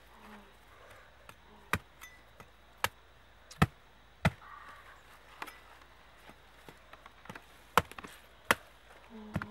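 Meat cleaver chopping into the husks of palmyra palm fruit: about eight sharp, unevenly spaced strikes.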